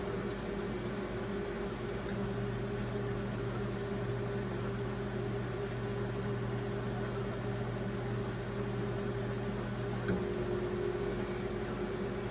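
A 1996 Brastemp Clean BMP31 microwave oven, built by Samsung, running on its Auto Re-Heat cycle: a steady low hum with fan noise. A faint click comes about ten seconds in.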